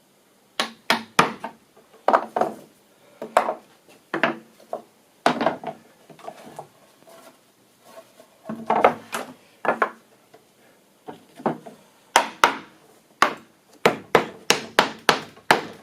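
Hammer blows on timber: irregular sharp knocks in small clusters, with a quicker run of about three a second near the end.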